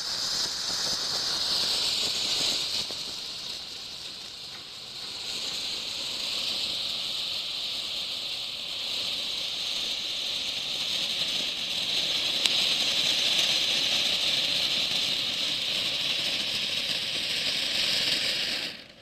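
Ground fountain firework (a 'Wonder Tree' cone) hissing steadily as it sprays sparks, easing off briefly about four seconds in and then building again, before cutting off suddenly near the end.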